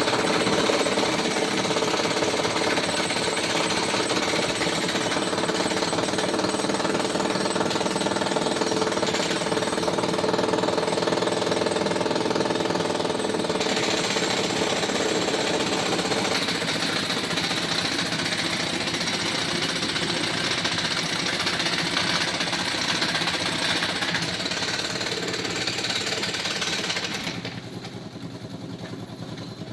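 Jackhammer (road drill) hammering continuously on road surface, dropping away sharply near the end.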